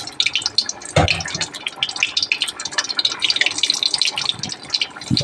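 Parboiled potato pieces sizzling and spitting in hot oil, a dense crackle, with a single knock about a second in.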